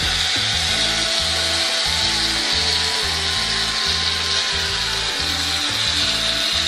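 Aerosol can of shaving foam hissing steadily as foam is sprayed into a bowl, over background music with a steady beat.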